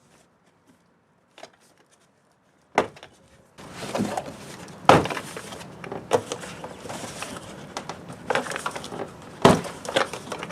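Plastic clips of a Toyota Prius front door panel snapping loose one by one as the panel is pulled off the door by hand, with the plastic panel scraping and rattling against the door between the snaps. A few seconds of near quiet come first, then the sharp pops start.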